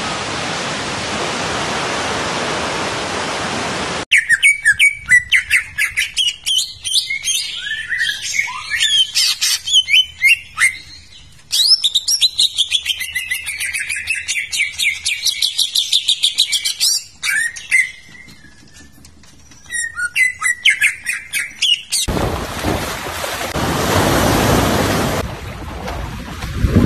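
Several songbirds chirping and trilling in quick, repeated calls that rise and fall in pitch. A steady hiss fills the opening few seconds and comes back near the end.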